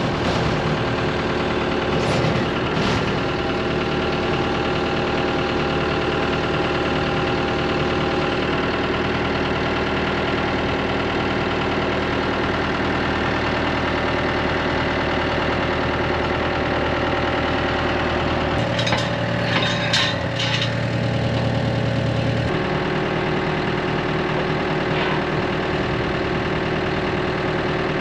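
Tractor engine running steadily under work, its note changing for a few seconds past the middle, with a few metallic clanks in that stretch.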